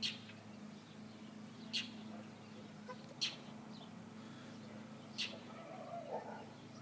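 A bird giving short, sharp scolding chirps about every one and a half to two seconds, alarm-calling at a cat, over a faint steady low hum.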